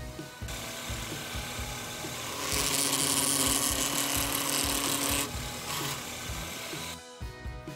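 Milling machine's end mill cutting aluminum as a block is fed by hand around a pivot pin to round its end; the cut is loudest from about two and a half seconds to just past five seconds in, with background music under it.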